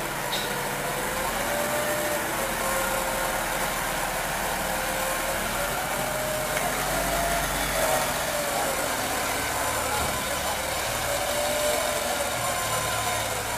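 Wheel loader's diesel engine running as it moves along the street, its pitch rising and falling slowly, over a steady din of street and crowd noise.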